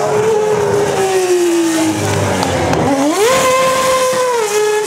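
Superleague Formula race car's V12 engine running at speed, its pitch sinking slowly, then climbing sharply about three seconds in, holding high and dropping again near the end.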